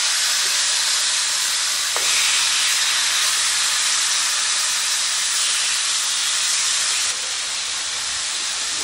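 Marinated chicken pieces sizzling loudly as they are laid into a preheated, oiled cast-iron skillet: a steady hiss that eases slightly about seven seconds in.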